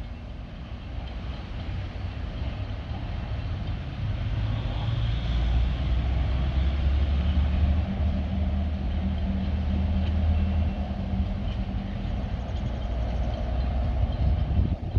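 EMD diesel locomotives of a freight train approaching, a low steady engine rumble that grows louder partway through and eases a little near the end.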